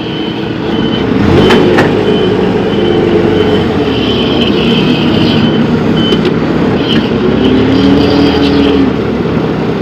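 Diesel forklift engine running, revving up about a second in as the forks are raised with the hydraulic levers.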